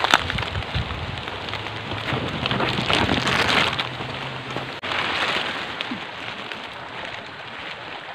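Heavy rain falling, a steady hiss with sharp drop hits close by near the start; it is loudest a few seconds in.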